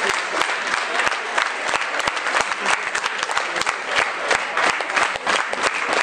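Audience applauding: steady, dense clapping of many hands.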